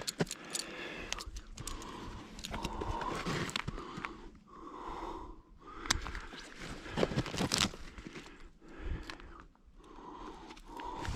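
A person breathing hard, a series of heavy breaths a second or two apart, with crunching footsteps and scuffs between them.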